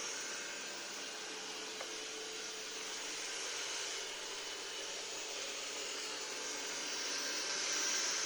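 Robot vacuum cleaner running: a steady hissing whir with a faint hum, growing a little louder near the end. A single small click about two seconds in.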